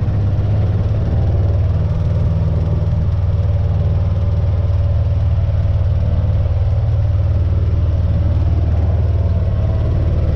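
Kawasaki Mule 610 utility vehicle's single-cylinder engine running steadily, with no revving.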